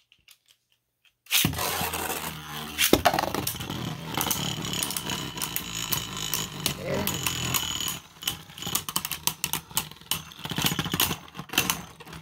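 Two Beyblade Burst spinning tops are launched into a plastic stadium about a second in. They spin and grind against the floor and each other with a steady whirring, and there is a sharp clash about three seconds in. After about eight seconds the sound gets quieter, with scattered clicks and knocks as the battle winds down.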